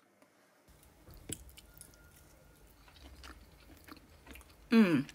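A person chewing crispy battered beef, with soft crunches and mouth clicks. Near the end comes a short hum that falls in pitch.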